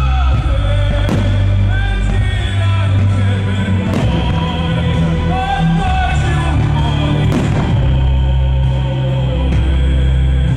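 Music with a singing voice over long held bass notes, the soundtrack of a pyromusical fireworks show, with a few sharp firework bangs cutting through it about one, four and seven seconds in.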